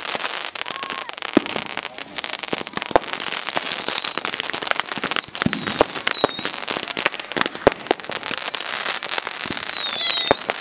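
Many consumer fireworks going off at once: the steady hiss and crackle of ground fountains, cut by frequent sharp firecracker bangs, with a few short falling whistles about halfway through and again near the end.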